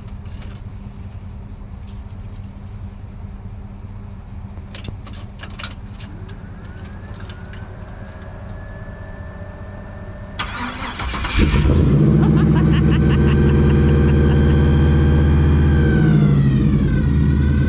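Chevrolet 150's engine being started: a stretch of clicks and key handling, then the starter cranks briefly about ten seconds in. The engine catches a second later and settles into a loud, steady idle that eases slightly near the end.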